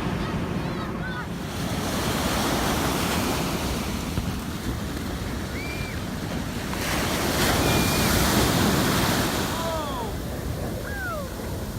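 Ocean surf breaking and washing up the shore, with wind buffeting the microphone; the surf swells louder about two seconds in and again about seven seconds in.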